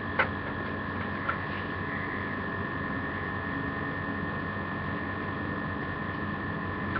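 Steady electrical hum with two faint, steady high tones over a noise floor. There is one light click just after the start and a softer one about a second later.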